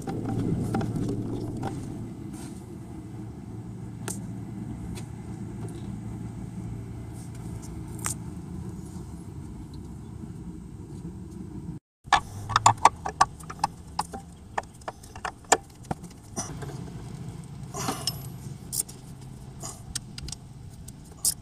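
Quarter-inch ratchet wrench clicking in quick, irregular runs with metallic taps as the 10 mm water pump bolts are tightened, starting about halfway through. Before that there is only a steady low hum with a few faint taps.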